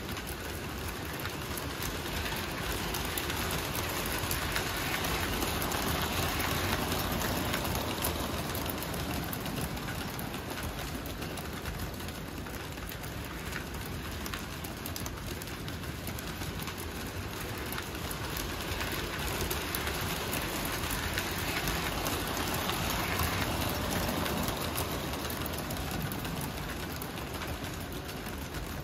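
Lionel O-gauge electric toy train, double-headed 726 Berkshire locomotives pulling freight cars on three-rail tubular steel track. A steady rattling clatter of wheels and motors that swells twice as the train passes close by.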